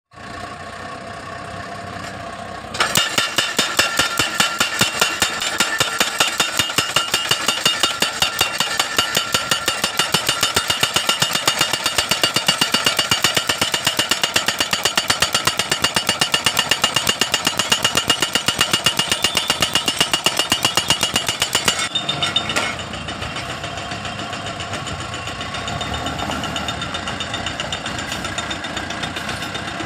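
DDIPL DD950B crash barrier post driver's hammer pounding a guardrail post into the ground with rapid, even blows over the machine's running engine. The hammering starts about three seconds in and stops about two-thirds of the way through, leaving the engine running.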